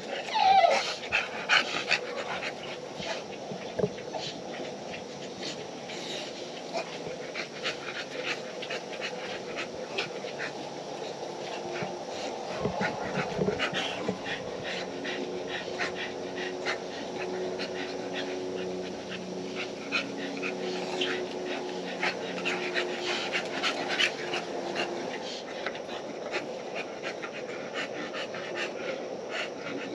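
Bully-breed dogs panting, with scattered clicks and rustling. A faint steady hum runs through the middle stretch.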